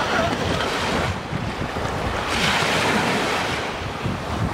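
Sea waves washing, with wind buffeting the microphone; the hiss swells briefly about halfway through.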